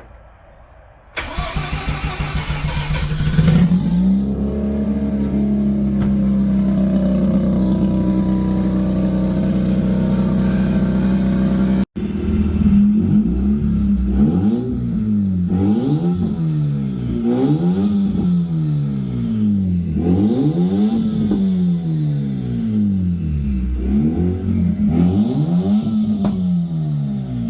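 Mazda RX-8's twin-rotor Renesis rotary engine on a cold start: the starter cranks for about two seconds before the engine catches and settles into a steady high idle. After a momentary break, it is revved up and let fall again over and over, about one rev every second and a half.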